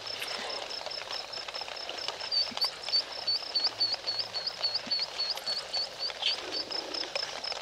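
Night ambience at a waterhole: a high-pitched call pulses steadily about three times a second over a constant background hiss. From about two seconds in until near the end, it turns into louder, quick upswept chirps.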